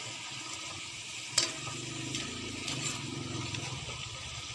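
Vegetables and tofu sizzling in a wok as a metal ladle stirs them, with one sharp clack of the ladle against the pan about a second and a half in. A low hum runs underneath through the middle.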